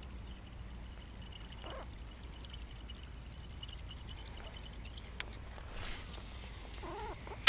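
Faint splashing of lake water around a kayak, with a short splash about six seconds in, a couple of sharp clicks, and a faint, rapid, high trill through the first few seconds.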